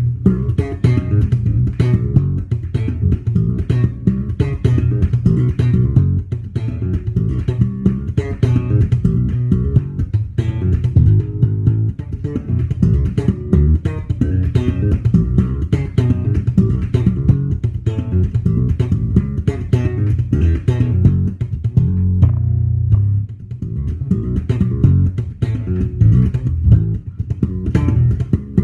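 Electric bass guitar played solo, a fast stream of plucked notes with sharp, percussive attacks. It eases off briefly about three-quarters of the way through, then picks up again.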